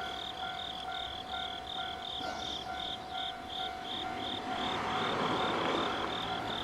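Japanese railway level-crossing warning alarm ringing: an electronic bell tone repeating about three times a second, over a steady hum. About five seconds in, a broad rush of noise swells and then eases.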